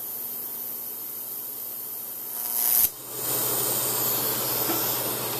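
TIG welding arc: a steady hiss that swells a little over two seconds in, cuts out abruptly near the three-second mark, then resumes louder and fuller, a pass laid without filler rod.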